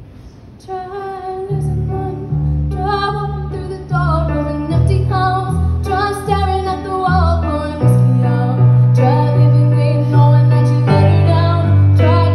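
A woman singing with a Casio digital keyboard, playing sustained chords beneath her voice. It starts softly and grows steadily louder through the passage.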